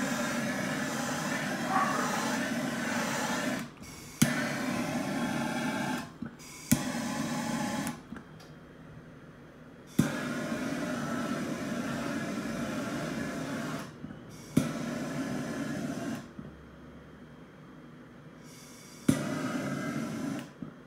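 Handheld gas torch fired in six short bursts. Each burst mostly starts with an igniter click, then the flame burns with a steady hiss for one to four seconds and shuts off.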